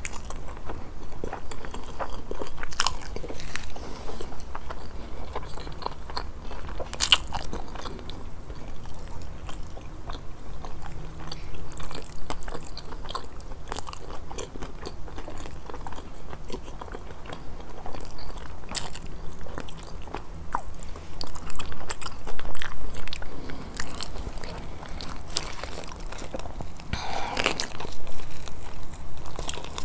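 Close-miked eating sounds: a person biting and chewing through a meal of grilled fish, with frequent crunchy bites and small wet mouth clicks.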